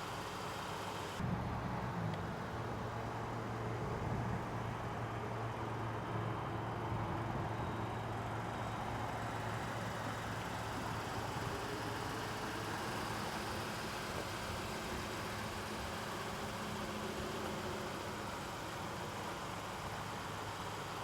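A vehicle engine idling steadily with a low hum; the sound changes abruptly about a second in.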